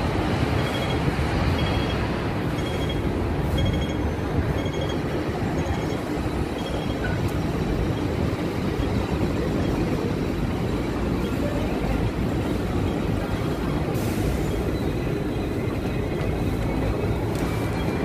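Busy city street traffic noise from road vehicles and trams, a steady low rumble. For the first seven seconds a short high electronic beep repeats about once a second.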